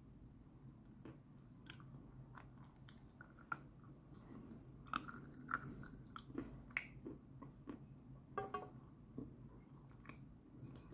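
Chewing of a dry lump of Tatar rose edible clay, with irregular crisp crunches as the clay breaks between the teeth.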